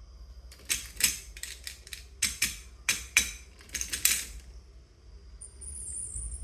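Marbles clicking and clattering down a wooden marble run: about ten sharp, irregular clicks over some four seconds, then they stop.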